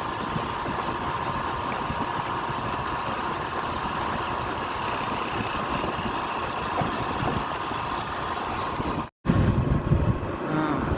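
Scooter engine running steadily under road and wind noise on the microphone while riding. About nine seconds in the sound cuts out for an instant and comes back with heavier wind buffeting.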